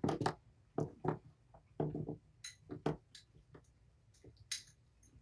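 Scattered light taps and clinks of dishes being handled while wet food is served, several in the first three seconds, then a sharp click about four and a half seconds in.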